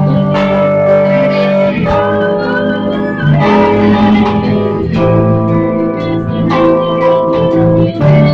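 A small band playing an instrumental passage: held electric keyboard chords over an electric bass line, the chords changing every second or two.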